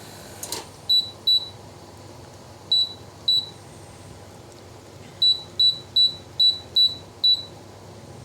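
Split air conditioner's indoor unit beeping in answer to remote-control button presses while it is being switched to heating mode: ten short, high beeps, two, then two, then six in quick succession. A brief click or rustle comes about half a second in.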